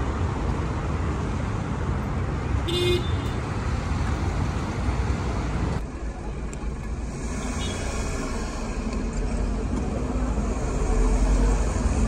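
Busy city road traffic, with a short car-horn toot about three seconds in. After an abrupt change about halfway through, the steady low rumble of a car driving along a city street.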